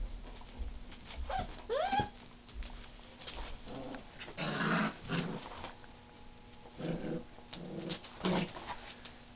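Five-week-old puppies making play noises: a high, bending whine about two seconds in, then short rough growls from about halfway through as they tussle.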